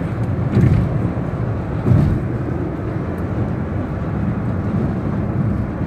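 Steady low road and engine rumble of a car at highway speed, heard from inside the cabin, with two short thumps about half a second and two seconds in.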